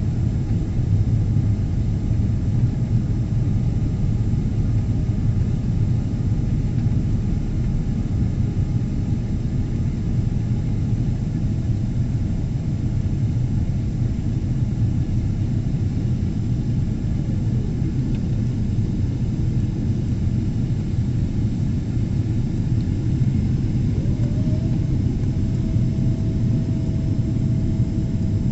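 Boeing 777-300 heard from inside the cabin in flight: a steady, deep rumble of engines and airflow. A faint steady tone joins in near the end.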